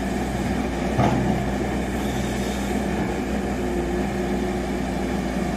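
Diesel engine of a JCB 205 tracked excavator running steadily at a low, even pitch.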